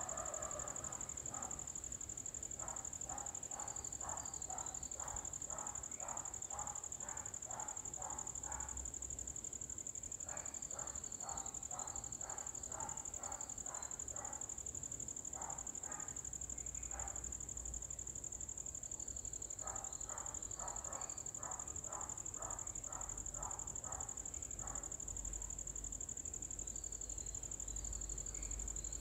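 Steady high-pitched drone of insects, with several runs of a repeated animal call of short, evenly spaced notes, about two to three a second, each run lasting a few seconds.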